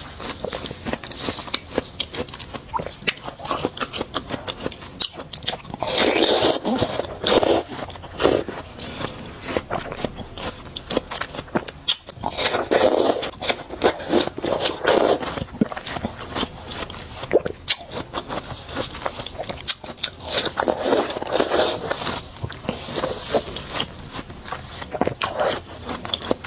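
Watermelon being bitten and chewed close to the microphone: crisp, juicy crunching with constant wet mouth clicks, and three louder stretches of chewing.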